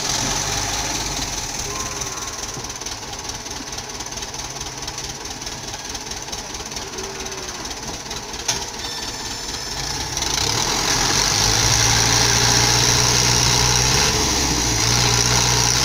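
Fiat 640 tractor's four-cylinder diesel engine running as the tractor works to get out of the mud, revved up harder about ten seconds in and held there, dipping briefly and rising again near the end.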